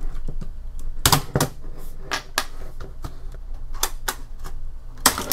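Irregular plastic clicks, snaps and knocks as the plastic case of a 1999 IBM ThinkPad 240 laptop is handled and pried apart by hand, with the sharpest snaps about a second in and near the end.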